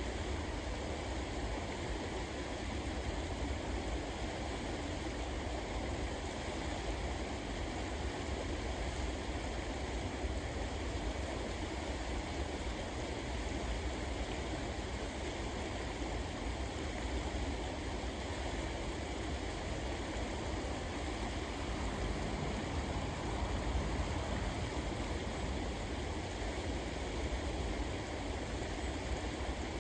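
River water rushing steadily, with a deep rumble underneath.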